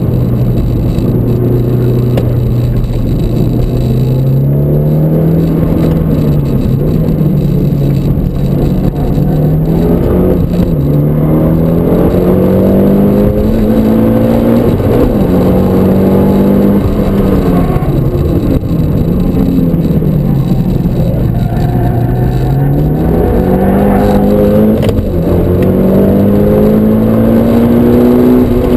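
Mitsubishi Lancer Evolution IX's turbocharged four-cylinder engine with an aftermarket muffler, heard from inside the cabin while driven flat out. The note holds steady for the first few seconds, then climbs again and again under throttle, dropping sharply at each gear change and sinking more slowly under braking before it rises once more.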